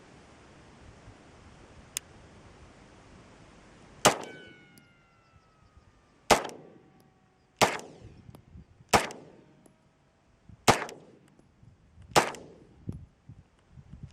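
Beretta Px4 Storm Compact 9mm pistol fired six times at a slow, uneven pace, roughly one shot every one and a half seconds, the first about four seconds in. Each shot has a short decaying tail, and a faint ringing tone trails after the first.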